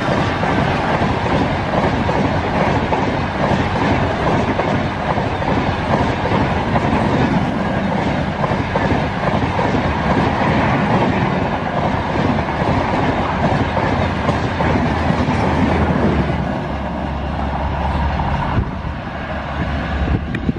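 Indian Railways express passenger coaches rushing past close by at speed: a loud, steady roar of wheels on the rails that eases off in the last couple of seconds as the train passes.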